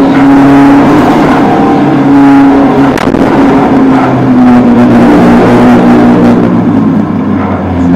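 Citroën AX Sport's four-cylinder engine driven hard, heard from inside the cabin: its pitch climbs and drops back in steps as it goes up and down the gears, with a sharp click about three seconds in. It eases off briefly near the end.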